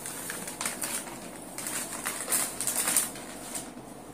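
Paper rustling and crackling as a white paper envelope is handled and opened, in irregular crackles that are busiest about two to three seconds in.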